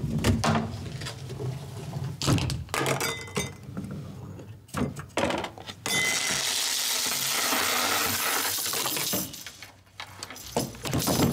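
Rube Goldberg chain-reaction machine running: a string of knocks, clacks and clinks as small balls roll down wooden ramps and trip plastic scoops and levers. About six seconds in, a steady hiss lasts about three seconds, then the knocks start again near the end.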